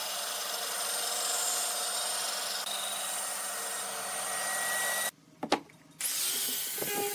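Power tool working wood with a steady, even noise that drops out abruptly about five seconds in. A couple of sharp clicks follow, and the tool noise returns about a second later, with a few knocks near the end.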